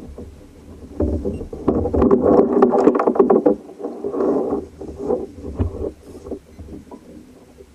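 Handling noise aboard a fishing kayak: irregular rustling and short knocks as hands work at fish and tackle on the hull. The noise is loudest from about one to three and a half seconds in, then comes in smaller bursts, over a low rumble of wind on the microphone.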